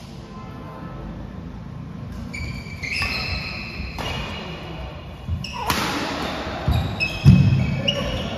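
Badminton doubles rally on an indoor court: a series of sharp racket strikes on the shuttlecock and players' footwork, with a heavy footfall thud about seven seconds in as the loudest sound. High, steady tones hang on after several of the strikes.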